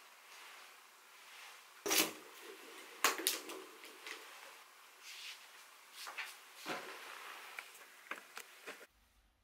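Close handling noises: clothing rustling, broken by a series of sharp knocks and clacks, the loudest about two and three seconds in, as a face mask is fitted and a bag on a chunky plastic chain strap is slung on. The sound cuts off suddenly near the end.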